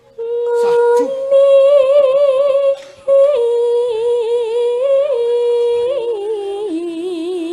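A Javanese sinden (female gamelan singer) sings a long, ornamented vocal line into a microphone, holding each note with a wavering vibrato. She takes a short breath about three seconds in, and the melody steps down to a lower held note near the end.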